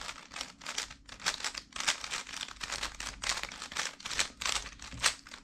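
Speedcube being turned quickly through an algorithm: a rapid run of plastic layer-turn clicks, about four to five a second.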